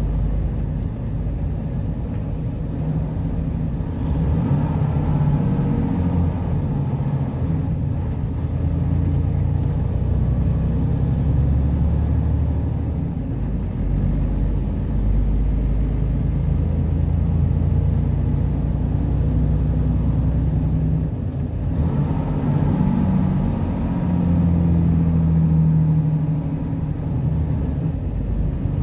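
Steady low engine and road noise heard from inside a vehicle's cab while driving, the engine note drifting a little up and down in pitch.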